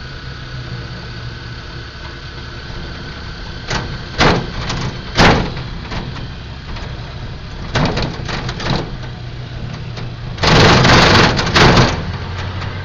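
A vehicle driving along a road, heard from inside the cabin: a steady low engine and road hum, broken by a few sharp clatters. Near the end comes a loud rush of noise lasting about a second and a half.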